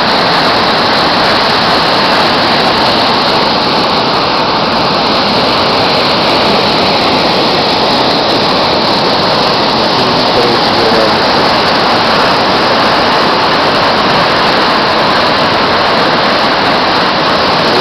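Flooded, muddy river rushing fast past a stone bank, its churning whitewater making a loud, steady rushing noise.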